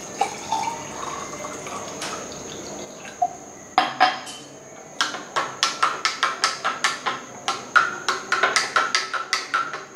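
Water poured into a drinking glass of aam panna concentrate for about the first three seconds, then a long spoon stirring the drink and clinking against the glass, about three or four clinks a second from about five seconds in.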